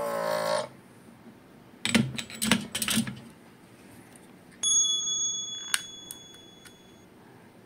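A short wavering tone at the start, then a few sharp knocks as the circuit board and tools are handled. About halfway through, an on-screen subscribe-button sound effect plays: a bell-like ding with a click in it that rings for about two seconds and fades.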